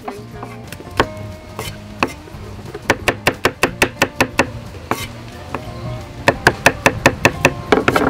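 Knife chopping shallots on a wooden chopping block: a few scattered strokes, then two quick runs of about six strokes a second, the first about three seconds in and the second near the end. Background music plays throughout.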